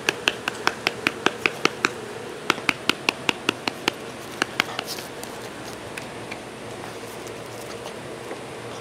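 Quick runs of sharp clicks made by a person calling puppies, about five a second, in three bursts that stop about five seconds in.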